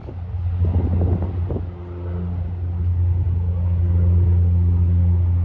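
Cessna 208B Grand Caravan's PT6A turboprop and three-blade propeller droning steadily at climb power after takeoff: a low hum with a few evenly spaced higher overtones, growing a little louder and then easing near the end. Some irregular low buffeting is mixed in during the first second and a half.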